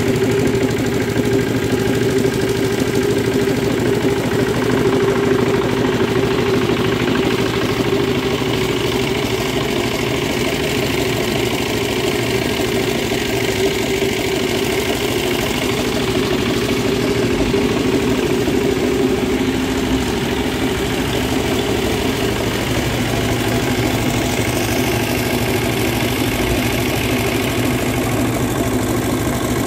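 An engine idling steadily, an even continuous hum that holds the same speed throughout.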